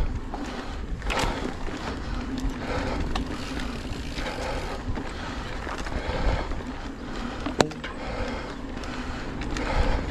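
Mountain bike rolling fast over a dirt forest trail: steady tyre noise with the frame and chain rattling over bumps, and wind rumble on the microphone. A single sharp knock comes about three-quarters of the way through.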